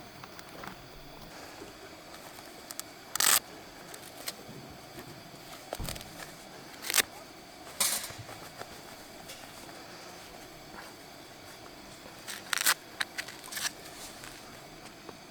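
Scattered sharp clicks and clatters, about eight of them at irregular intervals, over a steady background hiss: small objects being handled.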